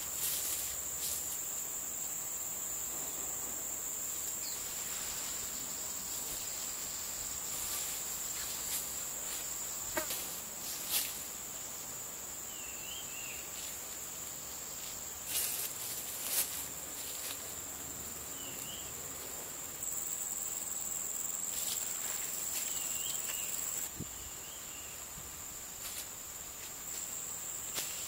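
Insects droning steadily in a high-pitched, unbroken band. A few sharp knocks come in the middle, and a few short chirps in the second half.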